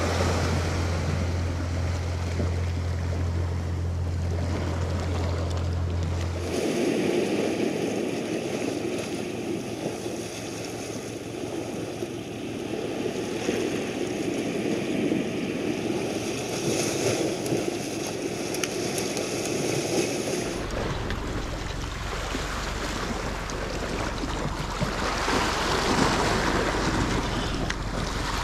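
Sea surf washing against a rocky shore, with wind on the microphone. The background changes abruptly about six seconds in and again about twenty seconds in, and a steady low hum runs through the first six seconds.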